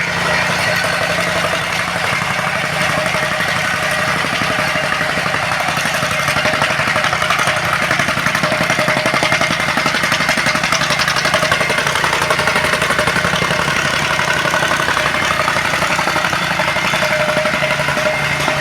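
Tsuzumi diesel tamping rammer (soil compactor) running steadily, its engine and ramming foot giving a fast, even pounding rattle.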